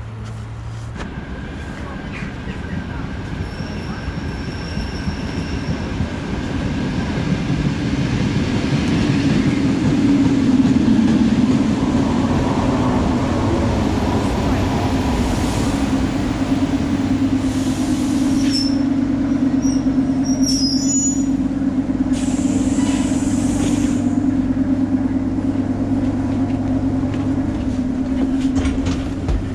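Electric commuter train running on the rails. A steady low hum grows louder over the first ten seconds and then holds, and short high wheel squeals come in the second half.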